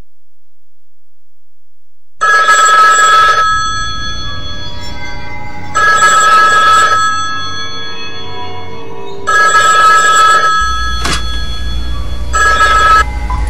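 Telephone ringing: four rings of steady electronic tones, each about a second long and roughly three and a half seconds apart, the last one cut short as if answered.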